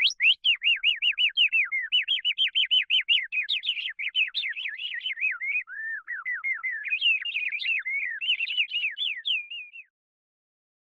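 Canary singing: a long, fast song of rapid repeated whistled notes that shifts in pitch from phrase to phrase, ending abruptly near the end.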